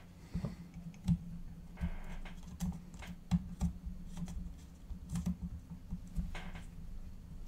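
Scattered, irregular light clicks and taps of small bolts and a GPS mount being fitted by hand to a carbon-fibre quadcopter frame, with a couple of brief soft rustles.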